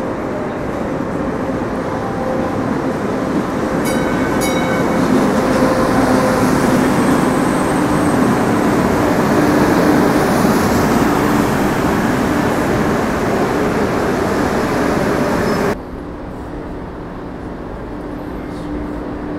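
Train running on rails, its rumble and wheel noise building to a peak about ten seconds in, with a few sharp clicks early on. The sound cuts off abruptly near the end, leaving a quieter steady hum.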